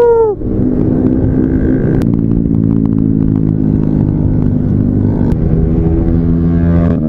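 Yamaha Nmax 155 scooter's single-cylinder engine running at a steady cruising speed while ridden, with road and wind noise. A short shout is heard at the very start.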